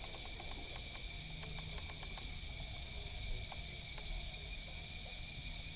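Steady high-pitched chorus of night insects, unbroken throughout, with a faint low hum beneath and a few soft ticks.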